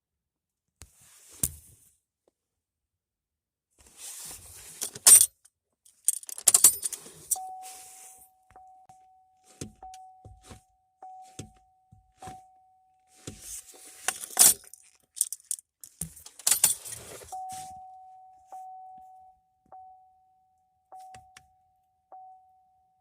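Keys jangling and clunking, with a car's warning chime dinging steadily at about two dings a second in two runs, one starting about seven seconds in and one about seventeen seconds in.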